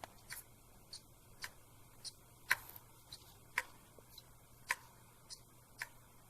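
Failing laptop hard disk clicking over and over, about two clicks a second with every other click louder: the 'click of death', usually a mechanical failure that means the disk must be replaced.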